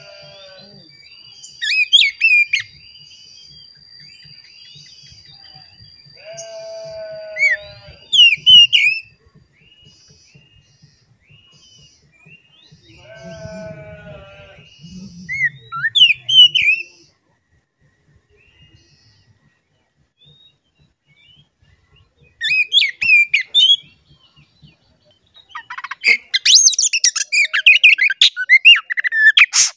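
Oriental magpie-robin singing in short separate phrases of sliding whistles and chirps, mixed with a few harsher rattling notes, then breaking into a fast unbroken run of song near the end. A steady high thin tone sounds under the first third.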